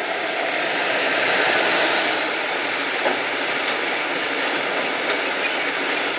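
Container freight train hauled by an electric locomotive passing close by: a steady rolling noise of the wagons' wheels on the rails, loudest a second or two in, with one sharper clack about three seconds in.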